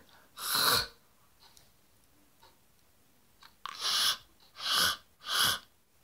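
A person pushing out harsh, forceful rasps from the back of the mouth, the back of the tongue pressed against the soft palate as when hawking up phlegm: the tongue whisper that forms the hiss of a beatbox hollow (water drop) whistle. One rasp comes about half a second in, then three short ones in quick succession near the end.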